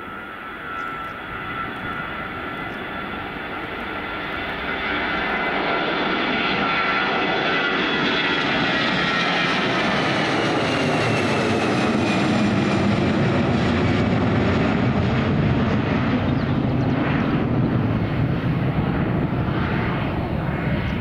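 Airbus A320's twin jet engines at take-off power as it lifts off and passes overhead. A whine of steady tones sits over a rushing noise that grows louder about five seconds in. The whine falls in pitch as the aircraft passes, and a deeper rumble builds as it climbs away.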